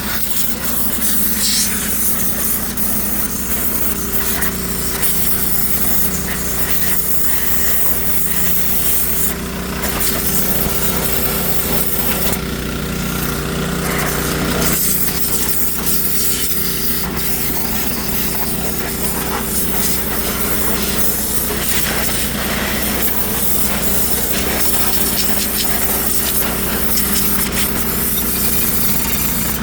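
Pressure washer running steadily, its motor humming under the hiss of the high-pressure water jet, which changes in tone now and then as the spray moves across the surface being cleaned.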